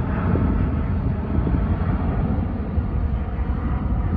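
Large jet airliner climbing out after takeoff, its engines making a steady, deep roar.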